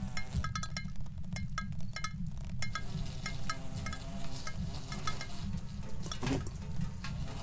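Experimental electroacoustic soundtrack of a live animation performance: a dense, noisy low rumble under scattered irregular clicks and short high pings, with a brief rising-and-falling glide about six seconds in.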